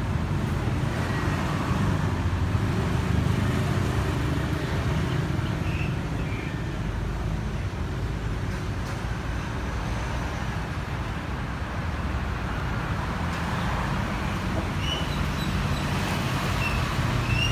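Steady road traffic rumble, a continuous low hum of passing vehicles. A few brief faint high chirps come about six seconds in and again near the end.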